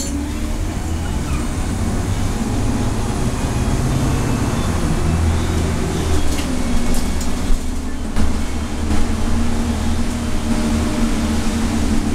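Nova LFS city bus heard from inside the cabin near the front as it drives off: a continuous engine and drivetrain drone with steady tones that drop in pitch about six seconds in, and a few light knocks around the eight-second mark.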